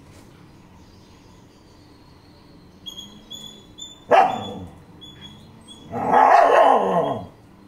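Two loud animal calls, dog-like in character: a sudden sharp one about four seconds in that drops in pitch, and a longer wavering one lasting about a second, starting around six seconds in. Faint high chirps come between them.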